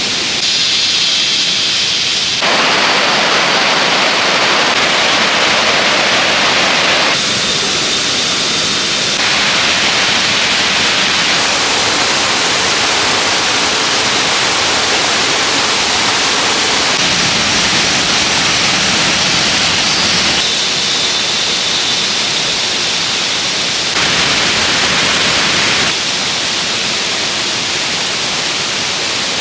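Steady rushing of stream water. The character of the noise changes abruptly several times, as the sound cuts between shots.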